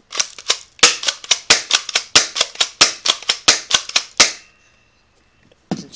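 Airsoft Mossberg-style pump-action shotgun racked and fired as fast as possible: a rapid string of sharp clicks and snaps, about five a second, that stops abruptly a little after four seconds in.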